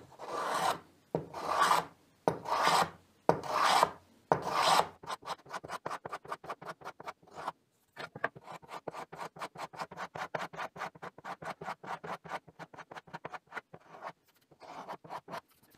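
One-hand block plane shaving glued-on solid-wood edge banding flush with a shelf board. First five long strokes at an even pace, then a quick run of short strokes, about five a second, with a brief pause partway through.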